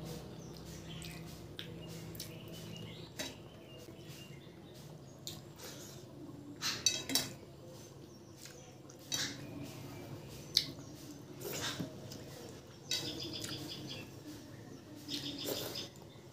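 Eating by hand from a steel plate: wet chewing and lip smacks, with scattered clicks of fingers scraping and mixing rice and curry on the plate.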